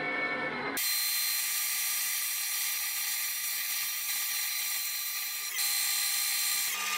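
Metal lathe running with its chuck spinning a stainless-steel-sleeved aluminium wheel spacer while the cutting tool finishes its surface: a steady machine whine with several tones over a hiss, which shifts abruptly about a second in and again near the end.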